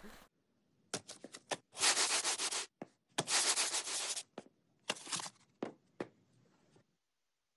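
Sandpaper rubbed on wood in three long strokes, with short scraping rubs and a few sharp knocks between and after them.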